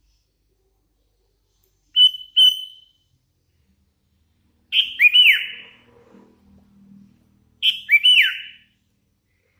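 Sooty-headed bulbul (kutilang), a hand-fed young bird, giving three short whistled phrases. First comes a pair of clear notes about two seconds in, then twice a whistle followed by quick notes sliding down in pitch.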